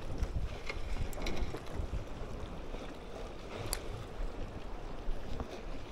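Wind rumbling on the microphone over the sea washing against the breakwater, with a few short clicks from handling, the sharpest about two-thirds of the way through.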